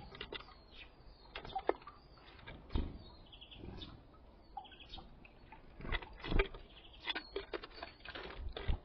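Small songbirds at a seed feeder: brief chirps and calls, with irregular taps and thumps as birds land, peck at seed and flutter their wings.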